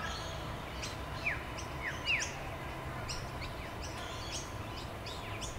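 Bird-chorus nature ambience: many small birds chirping in short, high, falling notes, with a couple of louder downward-sliding whistles about one and two seconds in, over a steady low background hiss.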